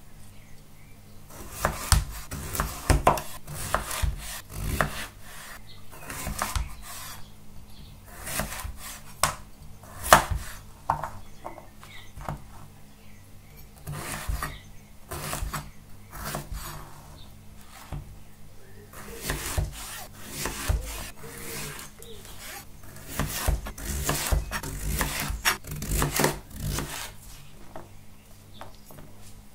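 Kitchen knife slicing through raw celeriac and striking a plastic cutting board, cut after cut in bursts with short pauses between.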